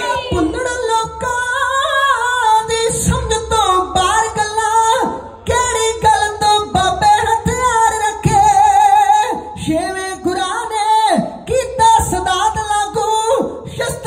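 Male Sikh dhadi singers chanting a Punjabi vaar (heroic devotional ballad) in high voices that waver and glide, amplified through a PA system.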